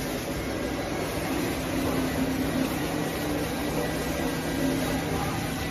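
Automatic stretch film wrapping machine just switched on and starting up, giving a steady hum with a low drone.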